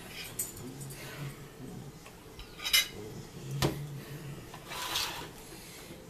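Dishes and cutlery being handled and set down on a table: scattered clicks and light knocks, the loudest a sharp knock a little past halfway, with a brief rustle near the end.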